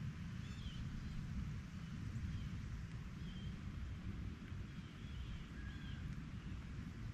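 Birds calling from the lakeshore woods: short chirps, roughly one a second, over a steady low rumble.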